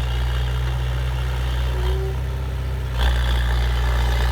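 Diesel engine of a piece of heavy machinery running steadily at low speed, picking up and getting louder about three seconds in.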